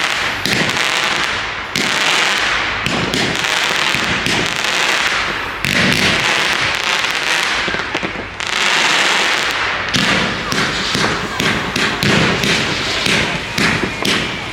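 Fireworks going off: dense crackling with bangs, turning into a quick run of separate sharp cracks over the last few seconds.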